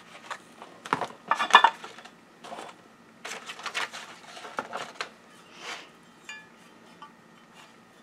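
Metal parts and a bench grinder's metal wheel guard being handled on a workbench: a run of irregular clinks and clanks, loudest about a second and a half in and again around three to four seconds, with a short metallic ring a little after six seconds.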